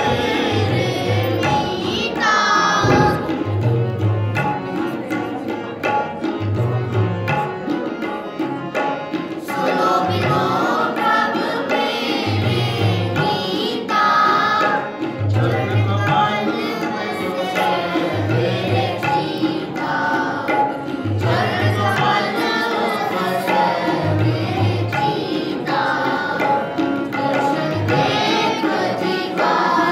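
Sikh kirtan: a ragi singing a hymn to harmonium accompaniment, with tabla bass strokes repeating in a steady rhythmic cycle underneath.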